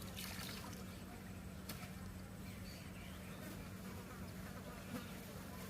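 A steady, low buzzing hum like a flying insect's, holding one pitch, with a few faint clicks.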